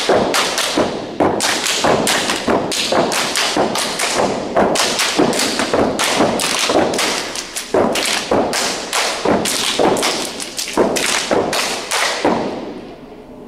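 Step team stepping in unison: a rapid rhythmic run of sneaker stomps on a carpeted floor with hand slaps and claps, about three to four hits a second, stopping about a second before the end.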